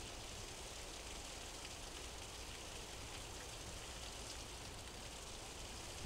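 Faint steady hiss of running water, with a low rumble underneath.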